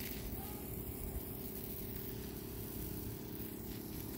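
Steady low mechanical hum with a constant pitch, from a motor or engine running.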